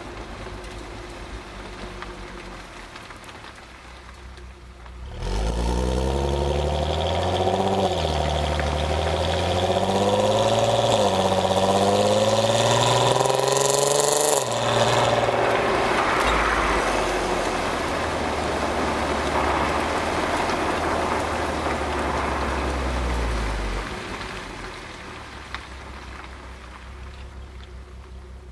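Stock exhaust of a Volkswagen Mk5 R32's 3.2-litre VR6, heard at the rear bumper. It runs quietly at first, then about five seconds in the engine gets loud and the revs climb for about nine seconds. The climbing note cuts off sharply, giving way to a steadier, lower rumble that quietens near the end.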